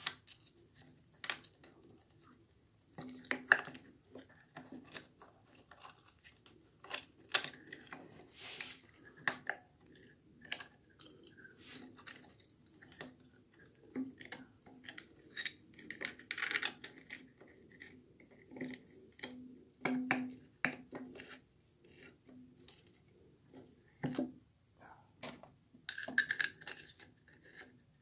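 Irregular metallic clinks, taps and light scrapes of small metal parts being handled as a cover plate and its bolts are fitted by hand onto a Fordomatic two-speed transmission case.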